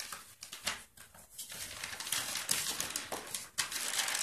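Gift wrapping paper rustling, crinkling and tearing as a present is unwrapped by hand, in irregular crackles and rips.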